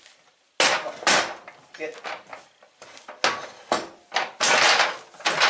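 Steel parts of a drywall panel lift's base and mast knocking and rattling together as they are worked into a V-shaped mount: a string of sharp metal clanks, with a longer rattle about four and a half seconds in.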